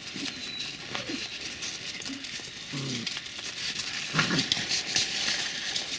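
Young puppies moving about in their pen, making light clicks, scratches and rustles, with a brief low vocal sound about three seconds in.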